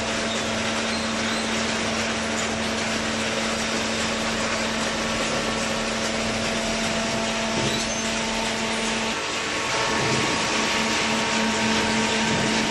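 Paper and card baler machine running, a steady mechanical hum over an even machine noise; the hum shifts and grows a little louder about nine to ten seconds in.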